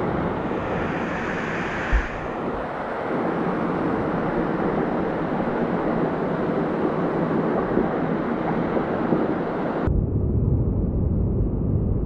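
Rushing creek water from a cascade close to the camera, a steady loud hiss, with a single knock about two seconds in. About ten seconds in the sound suddenly turns muffled and deep, with the high end gone, as the camera goes under the water.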